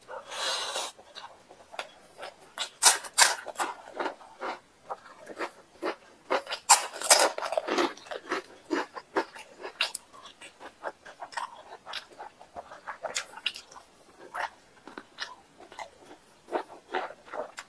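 Close-miked chewing of rice and chicken curry: wet smacking and clicking mouth noises in irregular runs, loudest around three and seven seconds in.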